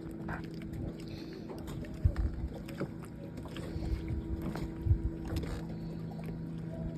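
An 18-inch electric linear actuator's motor humming steadily as it slowly raises a boat hatch, with a few low thumps and clicks.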